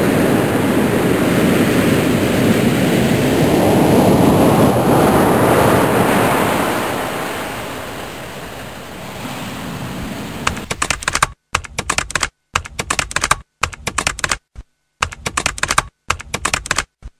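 A loud, steady rushing noise that fades away over the first half. Then, from about ten seconds in, bursts of rapid clicking like typing, cut by short silences.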